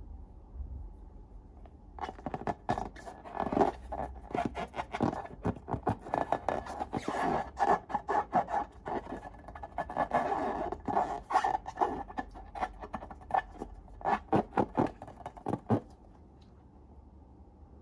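Slime being handled: a quick, irregular run of short sticky clicks and squelches, starting about two seconds in and stopping a couple of seconds before the end.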